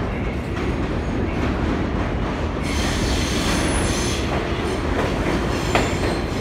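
New York City Subway 3 express train pulling into an underground station: a low rumble, joined about two and a half seconds in by a high wheel-and-brake squeal as the cars run alongside the platform, with a few clicks of wheels over rail joints.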